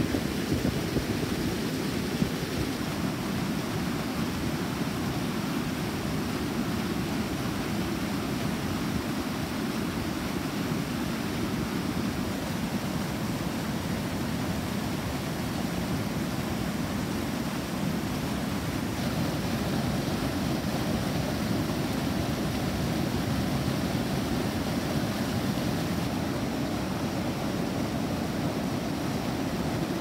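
River water swollen by monsoon rain rushing and churning over a low weir: a steady, deep rush of white water.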